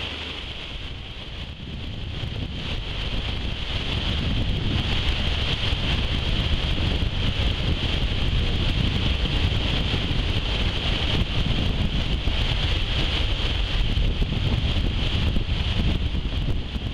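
Wind buffeting the microphone aboard a moving boat, over a steady rush of the boat's engine and water; it grows louder a few seconds in and then holds steady.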